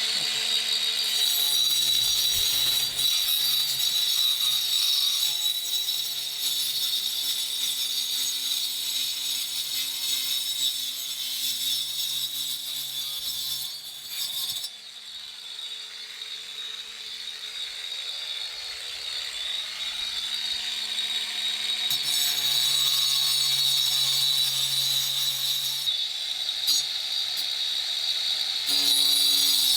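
Angle grinder with a diamond blade cutting through a stucco wall: a steady high whine with the hiss of the cut. It eases off for several seconds in the middle, then bites in again.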